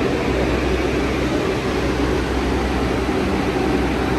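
Subway station background noise: a steady low rumble and hum with no distinct events.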